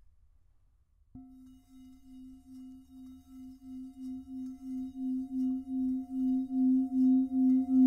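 A singing bowl is struck once about a second in. Its steady ringing tone then swells louder and louder with a pulsing waver about three times a second.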